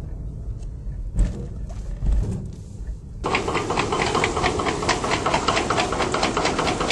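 A chain ferry's steel chain clattering as it runs over the guide wheel, a dense, rapid metallic rattle that starts suddenly about three seconds in. Before it, a low rumble.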